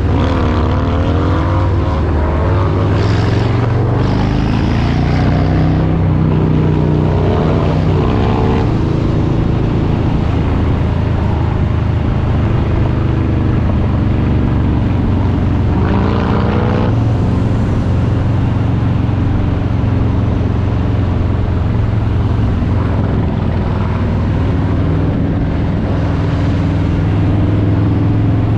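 Harley-Davidson Street Bob 114's Milwaukee-Eight 114 V-twin running under way, its exhaust note falling and rising with throttle and gear changes in the first several seconds and again about halfway through, steady in between.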